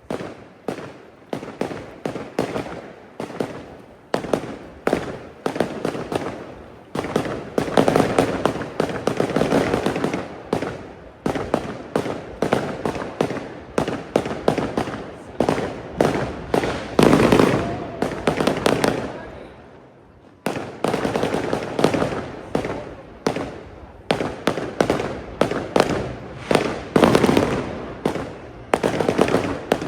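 Fireworks display: rapid volleys of bangs and crackles, nearly continuous, with a short lull a little before two-thirds of the way through before the bangs start again suddenly.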